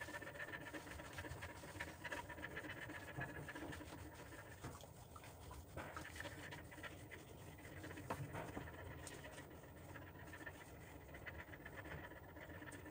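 Faint rustling and rubbing of a towel drying a German Shepherd's wet coat, with the dog panting.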